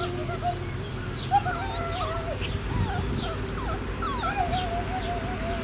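Mini Goldendoodle puppies whimpering: a run of high, wavering whines that rise and fall in pitch, one after another.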